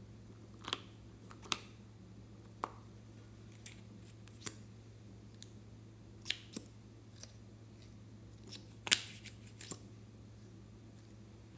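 Scattered light clicks and taps, about a dozen spread unevenly, from small bottles, caps and a brush applicator being handled, the loudest about nine seconds in. A low steady hum runs underneath.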